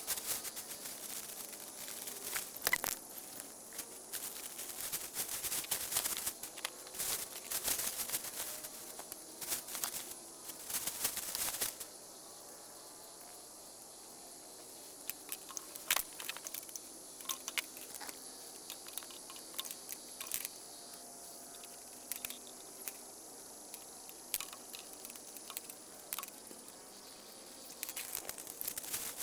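Irregular crunching and crackling, dense for the first dozen seconds and sparser afterwards, over a steady high-pitched insect buzz.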